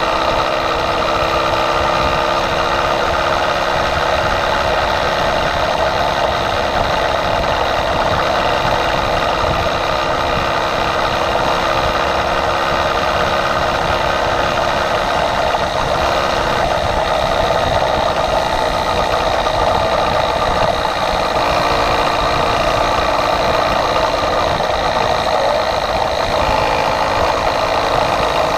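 Small engine of a motorized bicycle running steadily at cruising speed, its pitch holding nearly level, with rough wind noise underneath.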